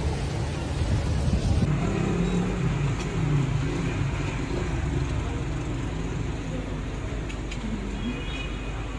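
Dust-storm wind blowing steadily, buffeting the microphone, with faint road traffic underneath.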